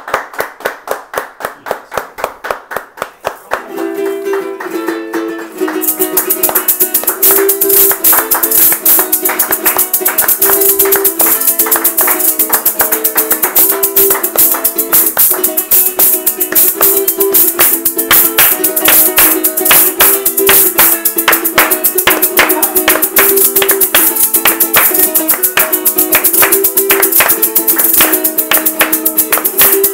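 Hands clapping in rhythm, then about four seconds in a small guitar starts strumming chords. About two seconds later a pair of maracas joins, shaken hard in a fast, steady rhythm, with the clapping going on alongside.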